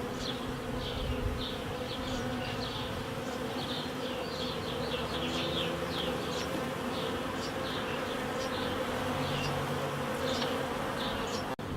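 Honeybees buzzing steadily in a dense cloud, a continuous hum, with short high chirps scattered over it.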